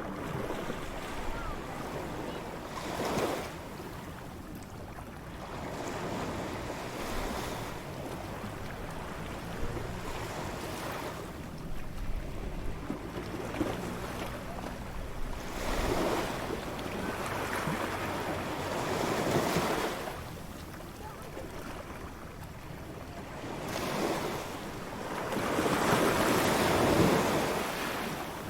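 Surf on a beach: waves breaking and washing in over a steady hiss of water, swelling and falling back every few seconds, with the largest surge near the end.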